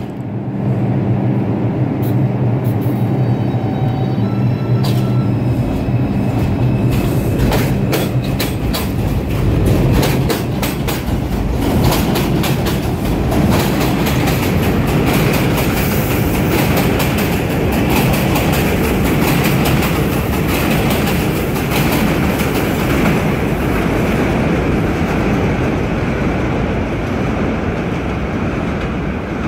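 New York City subway train on an elevated line. First a steady low hum while it stands, then a run of rapid clicking from the wheels over rail joints from about seven seconds in, settling into a steady rumble of the train running on the elevated structure.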